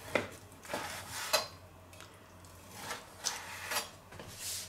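Chef's knife slicing raw chicken breast on a wooden cutting board, the blade knocking against the board about seven times at an uneven pace.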